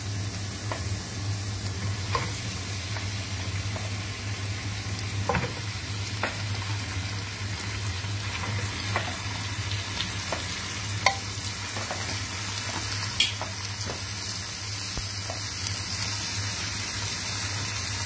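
Chopped onion and turmeric sizzling steadily in hot oil in a stone-coated pot as raw chicken pieces are laid in to fry. Scattered light knocks and clicks run through it, with two sharper clicks about 11 and 13 seconds in.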